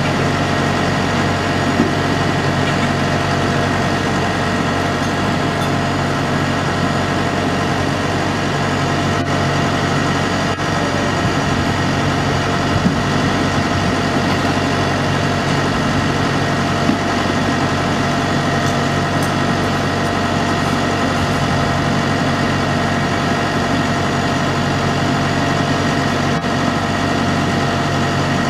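A shipyard mobile boat hoist's engine idling steadily.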